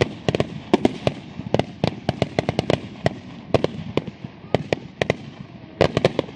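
Fireworks finale barrage: aerial shells bursting one after another in quick, irregular succession, many sharp bangs a second, thickest at the start and again near the end.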